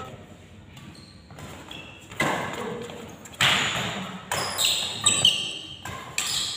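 Badminton rally: rackets strike the shuttlecock in a quick exchange of about six sharp hits starting about two seconds in, with short squeaks of shoes on the court among them.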